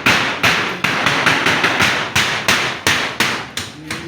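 Repeated hammer blows, about three a second, in a steady rhythm that weakens near the end.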